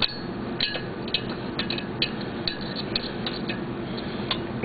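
Ratchet wrench clicking in short strokes while bolts are run down on a two-stroke snowmobile engine: sharp, irregular clicks about two or three a second over a steady low hum.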